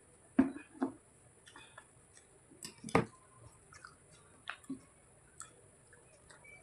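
Close-miked eating sounds: a handful of sharp bites and wet mouth clicks, the loudest near the start and about three seconds in.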